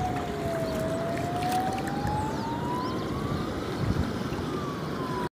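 A motorboat engine drones, its pitch sliding slowly down and then back up, over wind and water noise. The sound cuts off suddenly near the end.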